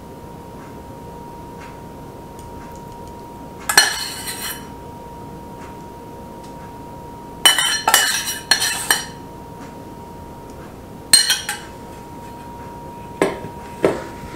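Metal spoon scraping and clinking against a stainless steel saucepan as thickened glaze is scraped out, in short bouts: once about four seconds in, several times a little past the middle, and once more later. Near the end come two duller knocks as the pot is set down on the wooden table.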